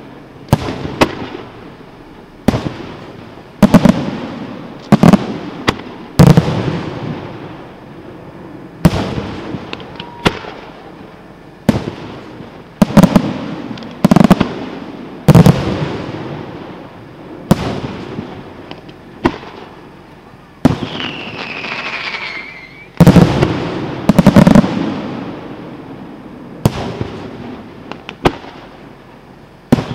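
Aerial fireworks shells by Di Matteo Luigi Fireworks bursting in the sky, about twenty loud booms at irregular intervals of one to two seconds, each trailing off in an echo. A falling whistle sounds about two-thirds of the way through.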